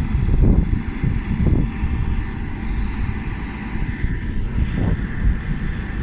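Backhoe engine running steadily, a low rumble, with wind buffeting the microphone.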